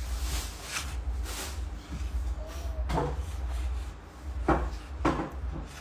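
A kitchen knife prying open a durian's woody, spiky husk, giving several sharp cracks and creaks as the shell is levered apart along its seams.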